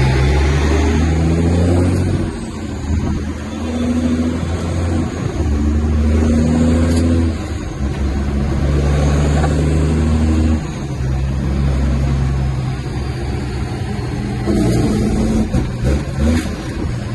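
Kenworth T800 diesel engine heard from inside the cab, pulling the truck up through the gears of an 18-speed transmission: the engine note holds steady in each gear, then briefly drops away and comes back at a new pitch at each shift, about every two to three seconds.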